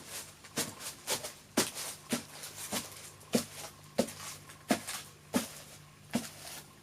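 Foley footsteps walking at a steady pace, about eleven evenly spaced steps with faint rustling between them.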